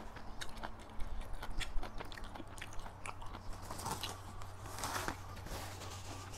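Close-miked chewing: wet smacking and clicking mouth sounds of someone eating a spicy pounded long-bean salad, with a short rustle about five seconds in.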